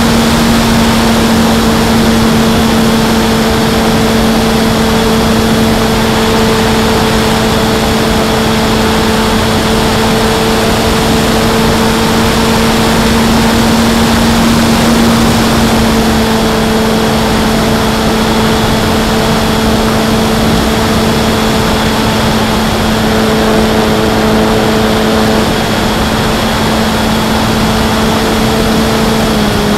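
Parkzone Sport Cub RC plane's electric motor and propeller running at a steady throttle, heard from a camera on board, under heavy wind rush over the microphone. The pitch dips slightly near the end.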